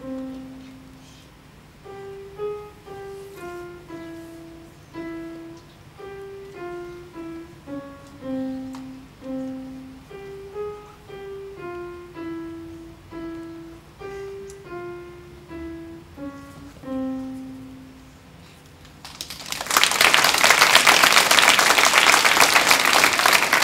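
An upright piano playing a slow, simple one-note-at-a-time melody, each note struck and left to ring. About nineteen seconds in the tune has ended and loud applause from the audience takes over.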